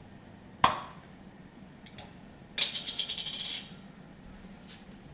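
Kitchen handling sounds: a single sharp click a little over half a second in, then about a second of clattering rattle near the middle.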